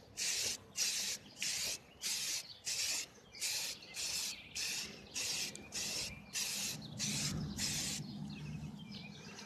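Aerosol spray-paint can spraying in short repeated bursts of hiss, a little under two a second, stopping about eight seconds in.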